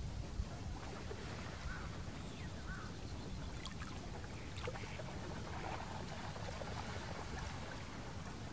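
Lakeshore ambience: a steady wash of lapping water with a low wind rumble, and a few faint short calls from waterbirds on the lake.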